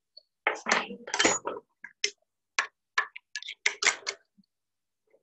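Steel hand tools clinking and knocking against a bench vice and workbench: a string of sharp, irregular clinks over about four seconds.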